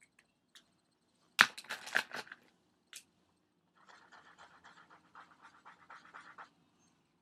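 A burst of sharp clicks and clatters, then a felt-tip marker scribbling quickly back and forth on paper, colouring in at about five strokes a second.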